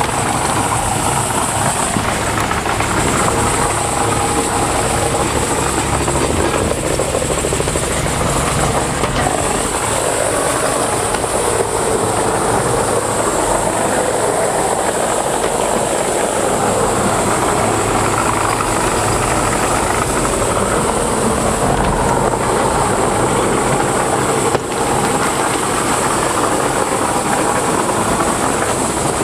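Heavy diesel machinery running steadily at full work, most likely the Morbark 2755 flail chipper processing wood, with a constant engine hum and a high hiss above it.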